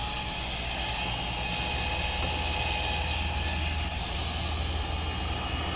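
Heat gun running steadily on its low setting: a constant rush of blown air with a steady motor whine, warming a phone's screen to soften the adhesive under the glass.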